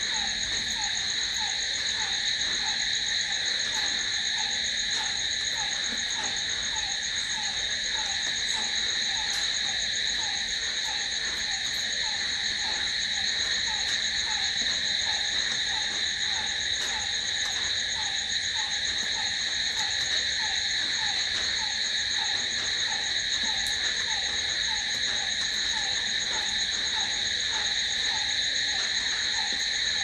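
Night chorus of crickets: a steady, unbroken high trilling at several pitches. Under it, a lower short falling call repeats at a steady pace.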